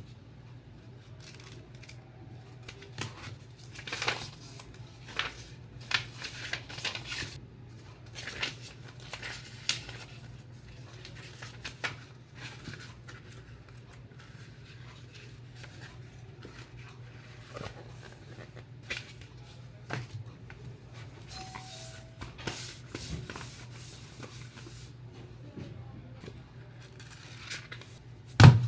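Books and their parcel packaging being handled: scattered scrapes, rustles, cuts and taps, with a steady low hum underneath. One loud knock comes near the end.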